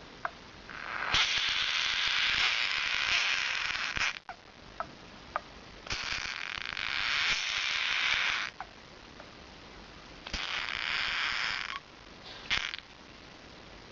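Horned frog (Pacman frog) screaming with its mouth wide open as a finger prods it, a defensive distress call. There are three long, harsh screams, the first and longest about a second in, with short faint chirps in the gaps between them.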